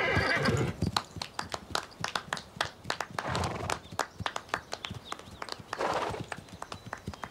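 A horse walking on the ground: a run of irregular hoofbeats and light knocks, several a second.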